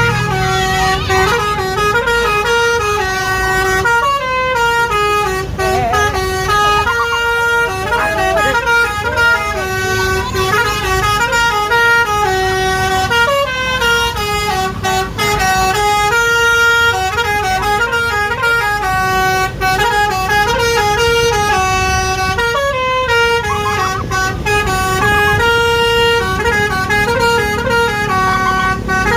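Basuri 'telolet' bus horn playing a melody: a long run of short held notes, stepping up and down in pitch a few times a second, over a low rumble.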